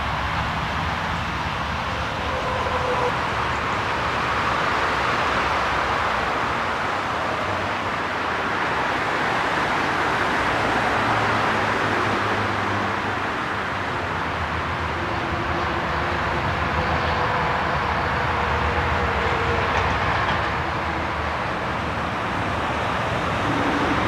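Continuous noise of A 66 motorway traffic, a steady wash of tyre and engine noise that swells and eases slowly as vehicles pass, with a low rumble underneath.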